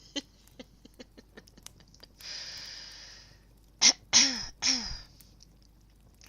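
A woman's non-speech vocal sounds: a long breathy exhale a little after two seconds, then three short, loud, breathy bursts just before the fifth second. Faint irregular crackles of a fireplace fire run underneath.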